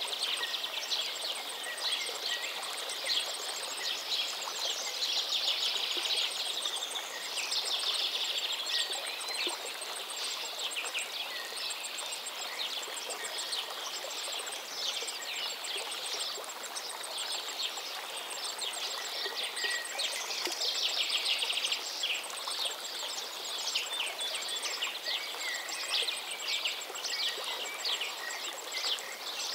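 Nature ambience: many birds chirping and singing over the steady rush of running water, with a fast, very high pulsing trill in the background.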